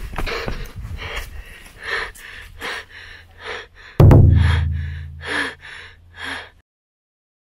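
A series of short sounds about half a second apart, then a sudden deep booming hit about four seconds in that dies away over two seconds, followed by dead silence near the end.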